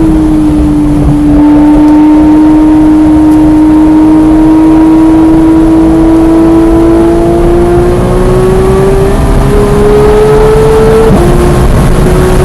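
Porsche 991.1 GT3's naturally aspirated flat-six pulling hard at speed, heard from inside the car. Its pitch rises slowly for about ten seconds, then drops sharply near the end with an upshift, over steady road and wind noise.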